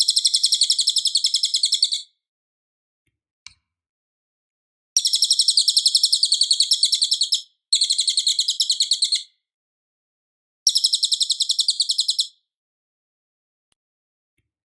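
Cililin bird singing: four phrases of rapid, evenly repeated high chirping notes, about seven a second, each phrase lasting two to three seconds with short silent pauses between them.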